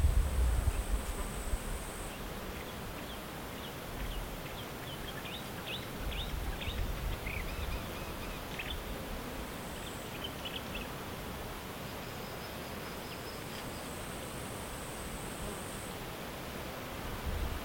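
A songbird calling in short, scattered high notes from about three to eleven seconds in. A thin, high insect buzz comes and goes, and wind rumbles low on the microphone at the start and near the end.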